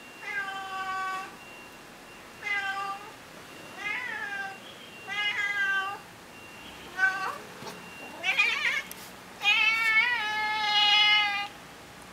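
Tabby cat meowing over and over as it begs for food, about eight meows. The later meows are louder and longer, ending in a long drawn-out meow.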